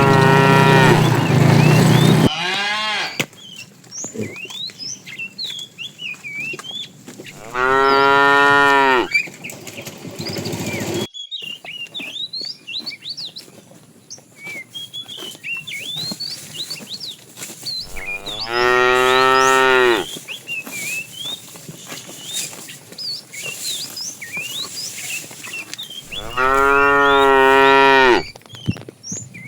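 Cows mooing: four long, loud moos, each about two seconds, several seconds apart.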